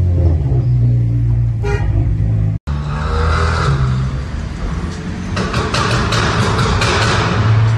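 SEAT Leon Cupra engine and exhaust running with a steady low drone. After a sudden cut, it is heard driving through a road tunnel, where a burst of sharp crackling pops comes about two-thirds of the way in.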